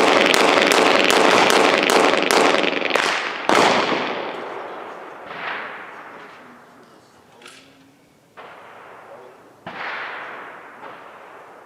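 Pistol shots fired in quick succession for about the first three and a half seconds, each crack ringing out. A few single, quieter shots follow later on.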